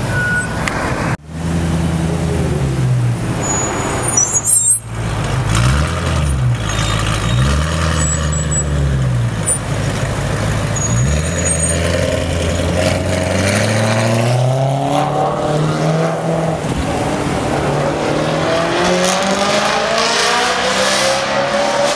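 BMW E92 M3's V8 engine revving repeatedly, its note swooping up and down, with a brief sharp crackle about four and a half seconds in. It then settles into a long, slowly rising pull as the car accelerates away.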